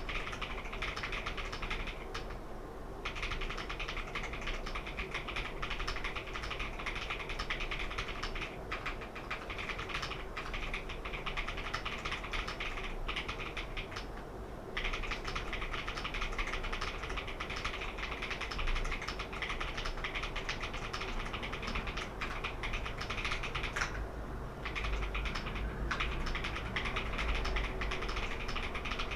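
Typing on the keys of a KeysMe Lunar 02 mechanical numpad: a dense, steady stream of key clicks, broken by three short pauses.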